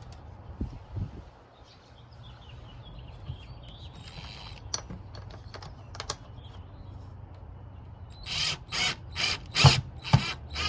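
Power drill run in short pulses near the end, about two a second, starting a hole in the wall for the doorbell plate's screws. Before that, a couple of light knocks and small handling clicks.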